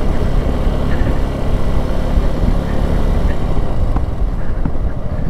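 Suzuki V-Strom SX 250 single-cylinder motorcycle engine running steadily under way, heard through a helmet-mounted mic.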